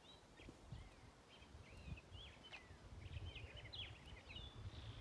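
Faint birdsong: a run of quick chirps and twittering notes, over a low rumble.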